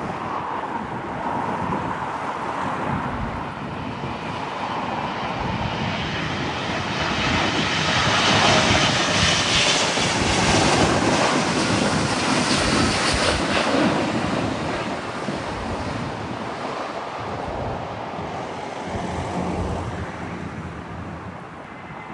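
Jet airliner passing close by, its engine roar building to a peak about halfway through and then fading away.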